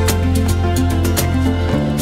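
Instrumental background music with a steady beat and a held bass line.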